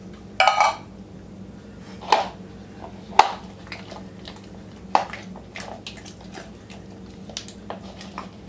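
A spatula scraping thick condensed cream of chicken soup out of a tin can, a brief ringing scrape, then mixing it into softened cream cheese in a bowl: a few sharp knocks of the spatula against the bowl among soft scraping and squishing.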